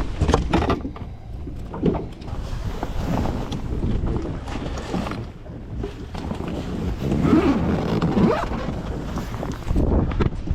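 Wind buffeting the microphone, an uneven rumbling noise that swells and falls in gusts.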